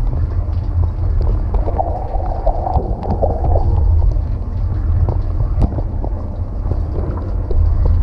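Dishwasher main wash heard from inside the tub: water from the spray arms sprays over the dishes and racks over a steady low rumble of the wash pump, with scattered sharp clicks of water striking. The detergent has already been released, so this is the detergent wash.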